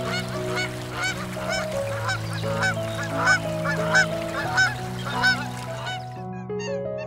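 Waterfowl honking, about two honks a second, over rushing water from a small weir, with soft background music of slow held notes. Near the end the rushing stops and shorter, higher-pitched calls begin.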